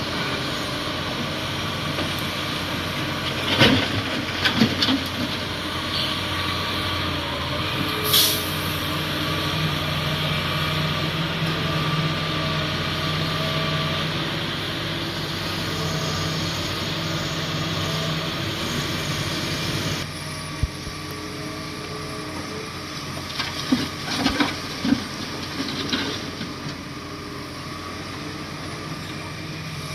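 Bulldozer's diesel engine running steadily, with scattered metallic clanks and knocks and a short hiss about eight seconds in; the engine note drops and gets a little quieter about two-thirds of the way through.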